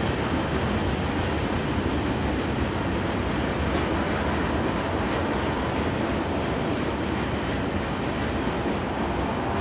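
Tail end of a long CN freight train, its covered hopper cars rolling on the rails: a steady noise of steel wheels on track.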